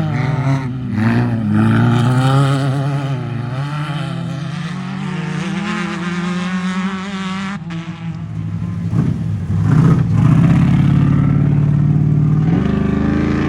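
Off-road race vehicle engines revving as they run past, the pitch wavering up and down; the sound dips briefly and grows louder again about ten seconds in.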